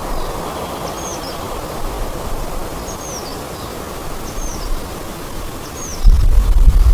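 A woodland bird repeating a short, high, down-curving call about once a second over a steady rushing background noise. Near the end, wind hits the microphone with a loud low rumble.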